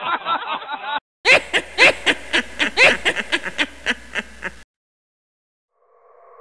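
Laughter inserted as an audio clip: a short burst that cuts off about a second in, then a second, fuller recording of laughing in quick, even 'ha-ha' pulses, about four a second, for some three seconds. After a brief silence a steady synthesizer tone fades in near the end.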